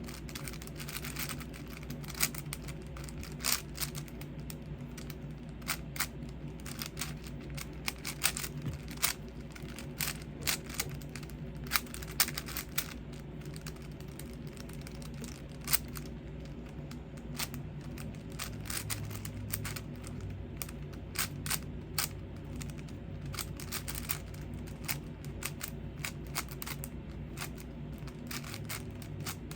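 5x5 Rubik's cube being turned by hand: irregular plastic clicks and clacks of the layers snapping into place, some sharper than others, over a steady low hum.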